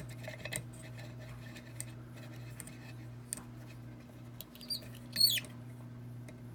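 Small metal clicks and a brief high squeak as a Kwikset-style challenge lock and its key are handled, over a steady low electrical hum.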